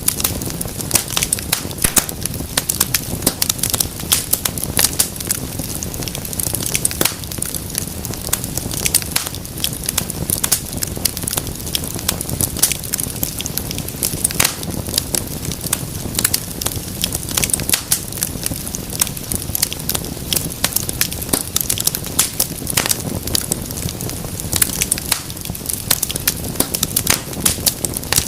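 Wood fire crackling and popping, with many irregular sharp pops over a steady low rumble of flames.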